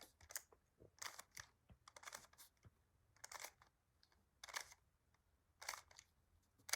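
Faint plastic clicks of a Rubik's Cube's layers being turned by hand, about one turn a second, some coming in quick pairs.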